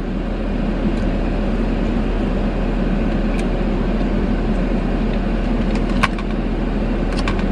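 Steady hum of a parked car idling, heard from inside the cabin. A sharp click comes about six seconds in, and a few faint ticks come near the end.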